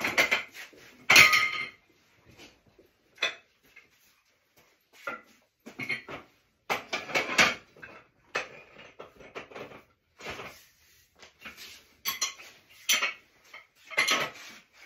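Heavy metal pipe tools being handled: irregular clanks and rattles of long pipe wrenches and a tripod pipe vise being set up on a pipe, coming in bunches with short quiet gaps between.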